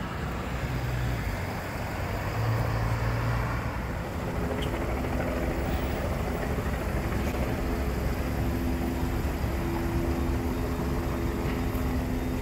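Steady low vehicle rumble outdoors. About four seconds in, a steady engine hum joins it, fitting an idling delivery truck close by.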